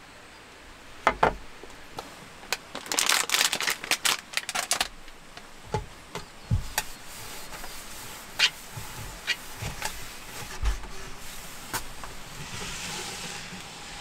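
Small things handled on a wooden tabletop: a plastic cup and an aluminium foil tray knocking and being set down, with a dense run of clattering taps a few seconds in. Near the end, a paper towel rubbing across the table as it is wiped.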